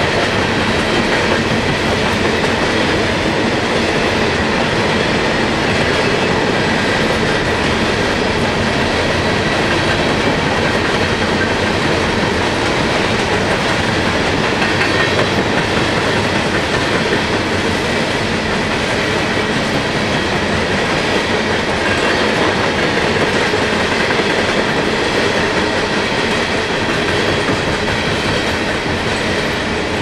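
Norfolk Southern coal train of Top Gon coal hoppers rolling steadily past, the steel wheels running on the rails in a continuous, even noise.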